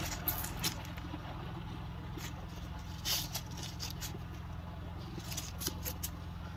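A bundle of naira banknotes being waved and flicked in the hand: scattered short crisp rustles of paper notes, over a steady low hum.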